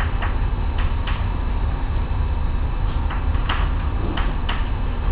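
Chalk tapping and scratching on a chalkboard while a word is written: sharp, irregular ticks, several a second, over a steady low hum.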